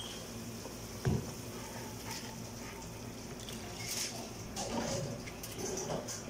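Rice poured from a plastic container into a pot of boiling water, a pouring, splashing patter from about four seconds in over the bubbling of the boil. A single sharp knock about a second in.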